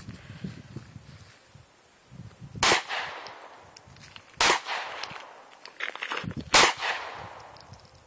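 Handgun fired three times at a slow, steady pace, the shots about two seconds apart. Each shot trails off over about a second.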